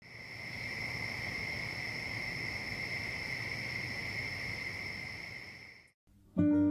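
Crickets chirring in a steady, unbroken high drone that fades in over the first second and fades out just before six seconds in. Acoustic guitar music starts near the end.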